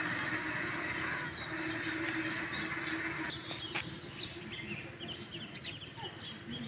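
Road traffic with a steady engine hum that fades out about halfway through, leaving small birds chirping in short, high notes.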